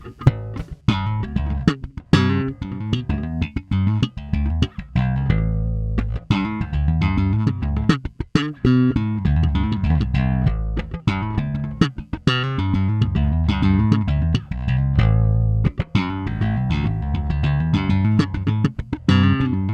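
Nordstrand Acinonyx short-scale electric bass played slap style, a quick run of popped and thumbed notes with sharp attacks and fat low notes, on the flat pickup setting with both pickups in series.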